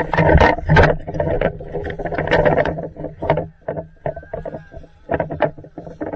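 Waves splashing and slapping against a small sailboat's hull as it heels and pounds through choppy water, in loud, irregular bursts.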